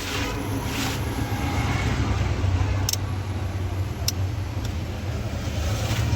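Steady low rumble of a motor vehicle engine, with two light clicks about three and four seconds in.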